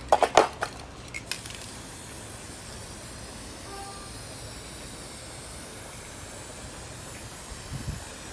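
A few sharp clicks in the first second, then an aerosol spray paint can hissing in one long steady burst.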